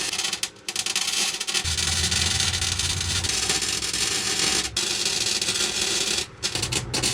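Welding arc crackling as a frame is welded on overhead, with short breaks where the arc stops: about half a second in, near the middle, and twice near the end. A low hum comes and goes under the crackle.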